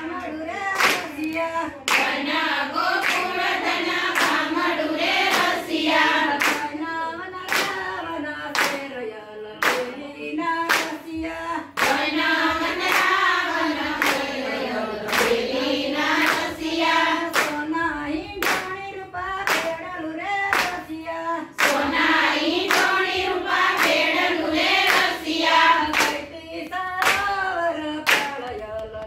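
Group of women singing a Gujarati Krishna bhajan together in unison, keeping time with steady hand claps at about two a second.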